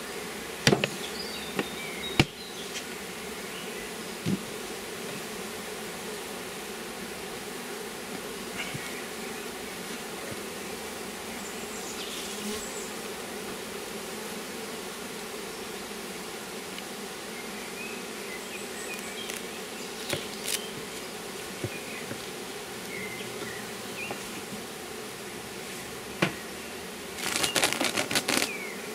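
Honeybees buzzing steadily around an open hive, with a few sharp wooden knocks as hive parts are set in place. Near the end comes a short burst of crinkling as a plastic foil hive cover is handled.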